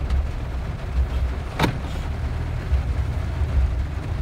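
Low, steady rumble of a car driving, heard from inside the cabin, with a single sharp click about one and a half seconds in.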